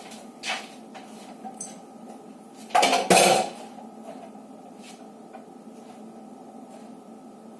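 Kitchen knife knocking and clinking on a hard surface while garlic is chopped into small pieces: a few irregular knocks, the loudest pair about three seconds in, over a steady hum.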